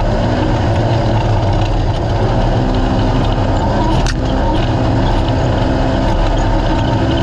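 A naturally aspirated race UTV's engine running steadily, with one sharp knock about four seconds in.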